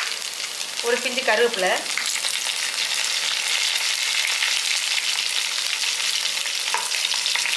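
Garlic, whole spices and chillies sizzling in hot oil in a kadai. The sizzle gets louder about two seconds in, as fresh curry leaves drop into the oil.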